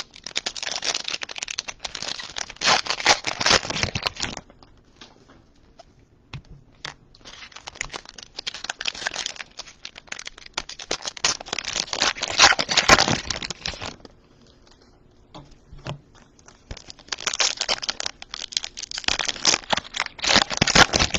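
Plastic wrappers of trading card packs crinkling and tearing as they are handled and ripped open, in three spells of several seconds each with short quiet gaps between.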